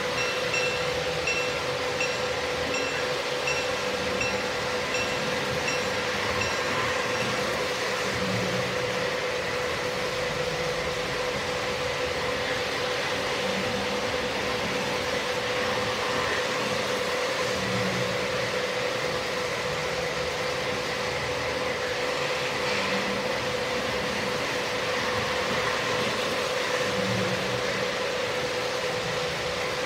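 Electric model train running past on layout track: a steady rumble of wheels on rail with a constant motor hum. A faint high beeping repeats about twice a second for the first several seconds.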